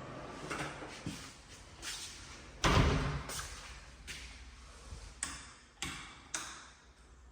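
A run of sharp knocks and thuds in an empty house, roughly one every half to three-quarters of a second, the loudest a little under three seconds in.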